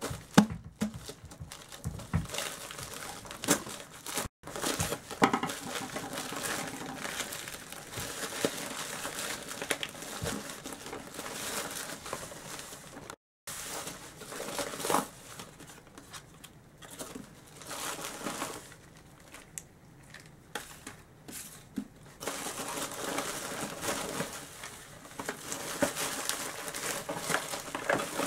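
Plastic mailer bag crinkling and tearing as it is opened by hand, with rustling as small cardboard boxes are worked out of it; the crinkling comes and goes in uneven handfuls throughout.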